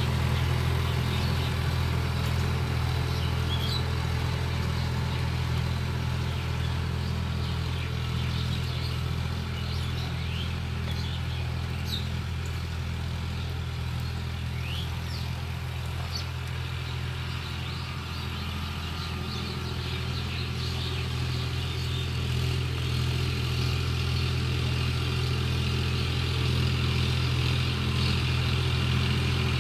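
Sonalika 50 HP tractor's diesel engine running steadily while working a tilled field, a low drone with a regular pulse. It eases off a little through the middle and grows louder again toward the end as the tractor comes back closer.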